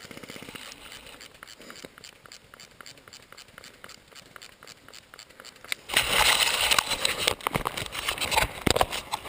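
Light crackling and rustling with many small clicks, then from about six seconds in a louder rustling noise for a couple of seconds.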